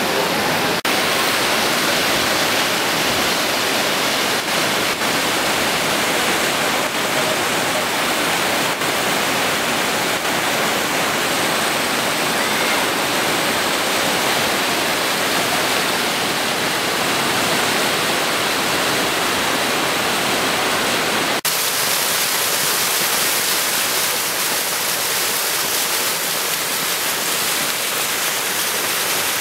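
Muddy floodwater from an overflowing stream rushing down a street in a torrent: a loud, steady rush of water. About two-thirds of the way through it changes abruptly to a thinner, hissier rush.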